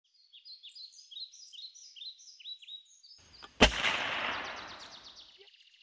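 A bird singing a string of short, falling chirps, about two a second. About three and a half seconds in, a rush of noise builds into a single loud gunshot-like bang that dies away over a second and a half.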